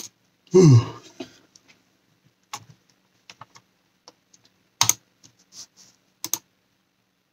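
A voiced yawn, falling in pitch, about half a second in. Then a few scattered clicks of computer keys, a second or so apart.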